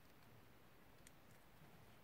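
Near silence, with one or two faint clicks from a plastic piping bag of slime being squeezed in the hands.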